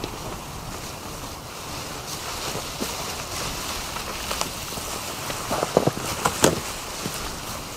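Footsteps through dry fallen leaves as dead branches are carried and dragged over the leaf litter, with wind buffeting the microphone. About two thirds of the way through come a few sharp, woody cracks and knocks from the branches.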